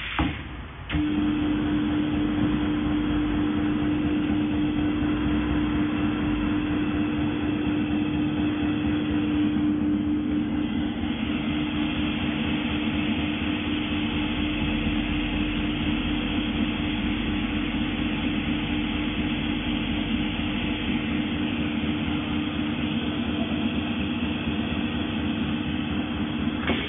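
Roll seam welding machine running a continuous weld along wire mesh under its copper wheel electrode: a loud, steady buzz with one strong pitch starts abruptly about a second in and cuts off at the end.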